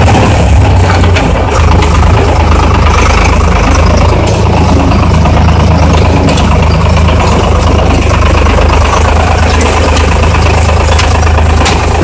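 Tractor engine running with a loud, steady low drone, heard from inside the cab while it drives a Rivière Casalis KR40 small square baler.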